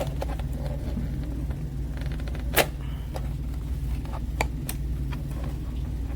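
A few sharp clicks and knocks from a tool being worked loose from a hard toolkit case, the loudest about two and a half seconds in, over a steady low hum.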